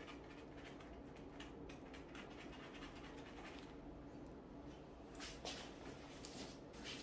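Faint handling noise of a thin steel gear cable being threaded through a bicycle handlebar gear shifter by gloved hands: light scratching and rubbing, with a few louder scrapes about five seconds in and again at the end, over a steady low hum.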